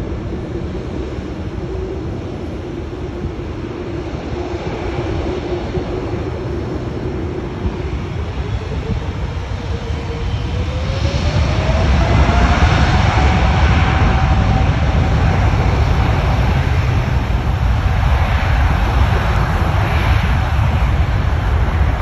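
Boeing 747-8's four GEnx engines spooling up to takeoff thrust. A steady whine rises in pitch about nine to twelve seconds in, and the low rumble grows louder and stays loud as the jet starts its takeoff roll.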